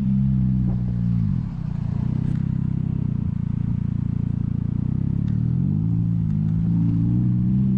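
Engine running, its pitch dropping about a second and a half in as it slows, then rising again around six seconds in as it picks up speed.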